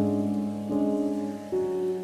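Background music: held chords that change about every three quarters of a second.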